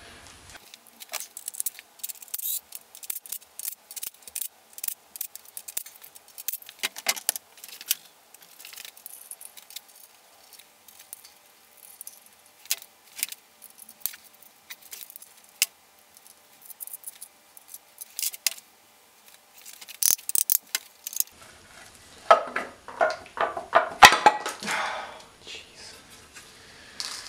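Scattered sharp metallic clicks and clinks of tools and bolts as the timing cover is unbolted from a BMW M54B30 engine. Near the end comes a denser, louder run of metal clanking as the cover is worked loose and lifted off.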